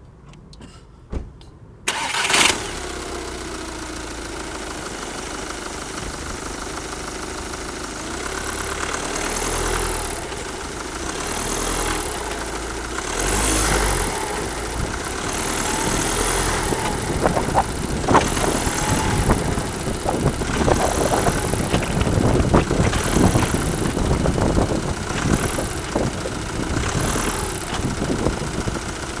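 Car engine starting about two seconds in after a short click, then idling and being revved repeatedly. Sharp rattling clatter comes in with the revs: the rattling on load change whose cause the owner does not know.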